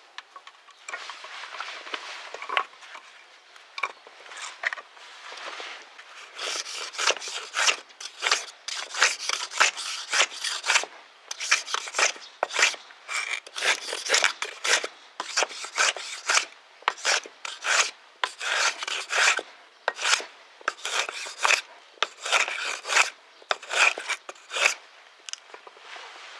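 Hand plane being pushed along a board in repeated strokes, about one or two a second, each a short rasping swish as it takes a shaving. The strokes are light for the first few seconds, then come firmer and louder.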